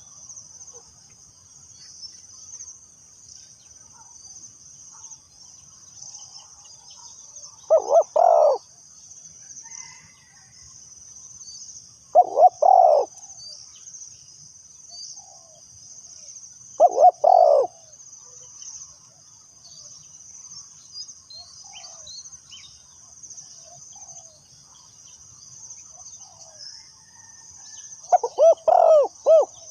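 Spotted dove (cu gáy / terkukur) cooing: four short phrases of a few notes each, about four seconds apart, with a longer gap before the last. A steady high-pitched drone runs underneath.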